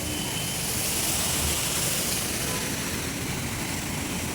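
Water fountain jets spraying and splashing into the pool, a steady rushing noise that grows a little louder and brighter for a couple of seconds about a second in.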